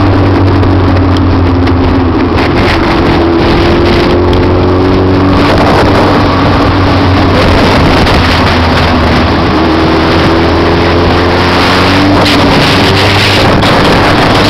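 Motorcycle engine running while riding, its pitch slowly drifting up and down with speed, under loud wind noise on the microphone.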